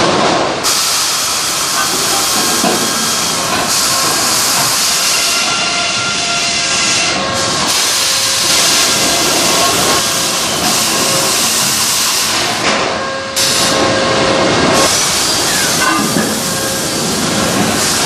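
Loud, steady din of running sawmill log-handling machinery, a log trough chain conveyor and live deck moving logs. It is mostly an even hiss with a few faint steady hums, and its character shifts abruptly several times.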